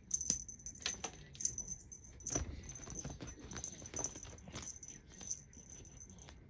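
A small bell jingling in quick, irregular shakes, with light taps and rustles mixed in, like a cat batting at a bell toy.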